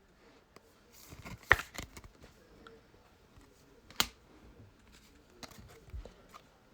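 Trading cards and pack wrappers being handled: scattered clicks and crinkly rustles, loudest in a short burst of crackles about a second and a half in, with one sharp click about four seconds in.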